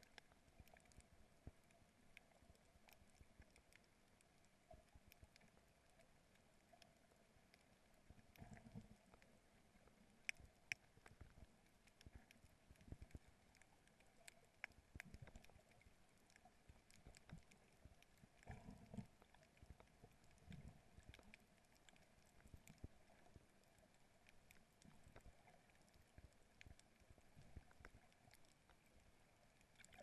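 Faint underwater sound, near silence: scattered small clicks and crackles, with soft, muffled low thumps of water moving against the camera now and then.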